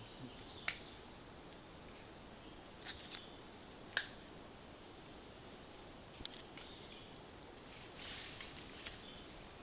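Faint rainforest ambience with faint high chirps, broken by a few sharp clicks and snaps, the loudest about four seconds in, and a short rustle near the end.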